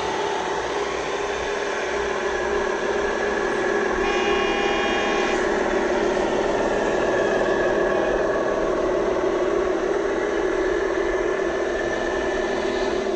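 Steady simulated truck engine drone from a scale RC truck's electronic sound module, its pitch drifting slightly. A short higher-pitched tone sounds for about a second, about four seconds in.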